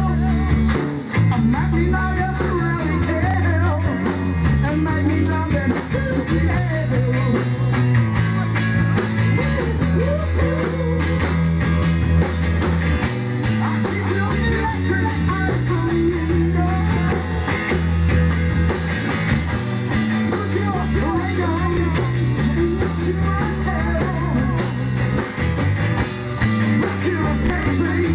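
A rock band playing live: drum kit with a steady, driving cymbal beat, electric guitar, a low bass line that moves in steps, and a lead vocal.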